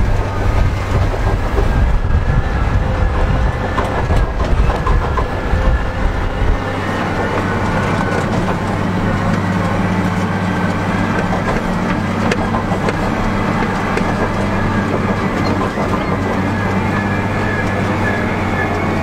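Wheel loader's diesel engine running as the machine drives over rough dirt. For the first six seconds or so it is a heavy, uneven rumble with rattles; after that it settles into a steady drone, heard from inside the cab.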